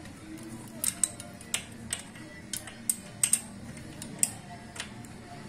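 Irregular metallic clicks and clinks of a 10 mm wrench on a rocker arm's valve-adjuster locknut, the wrench being set and pulled against a nut that is stiff and will not easily loosen.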